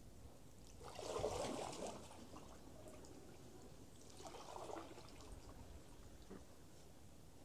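Floodwater splashing and trickling beside an aluminum canoe as it is moved along, twice: a short splash about a second in, the loudest, and a weaker one about four seconds in.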